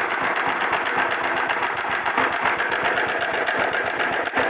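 2004 Honda Titan 150's single-cylinder four-stroke engine running steadily with a rapid, even metallic ticking clatter: the ugly engine noise whose cause is not yet known.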